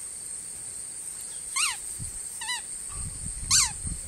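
A dog's squeaky toy squeaking three times, each squeak a short whistle falling in pitch, the middle one wavering. A steady high-pitched insect drone runs underneath.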